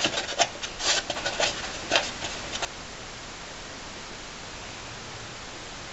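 Hands and sleeves rubbing and knocking against parts deep in an engine bay while reaching for a catch can's drain plug: a run of short scrapes and clicks for about two and a half seconds, then only a steady hiss.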